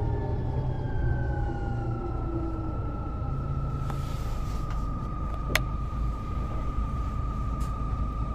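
Mercedes-Benz O407 city bus with a ZF Ecomat automatic gearbox under way: low diesel running with a high whine that falls in pitch over the first two seconds and then holds steady. A single sharp click comes about five and a half seconds in.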